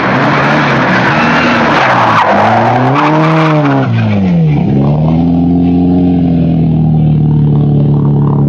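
Mk2 Ford Escort rally car at full throttle, with loud tyre noise for the first few seconds. The engine note climbs and then falls sharply to a low point about four and a half seconds in. It then climbs again and holds high as the car pulls away.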